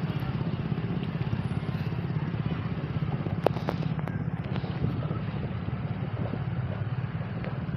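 An engine running steadily with a fast, even low chug. A few sharp clicks come about halfway through.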